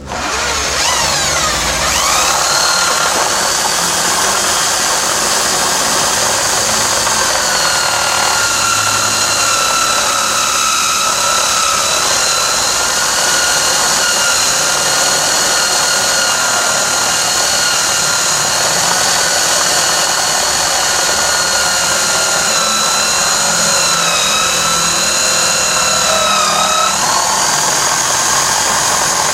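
Electric drill driving a homemade drum sander's sanding cylinder: the whine rises as it spins up in the first two seconds, then runs steadily, dipping in pitch briefly twice near the end.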